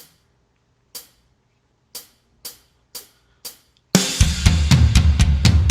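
Song intro: six sharp ticks counting in, one a second and then twice as fast, followed about four seconds in by a full band with drum kit and heavy bass coming in.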